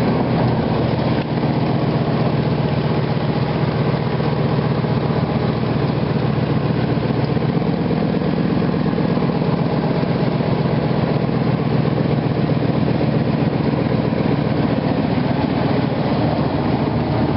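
1997 Ford F150's 4.6L Triton V8 idling steadily.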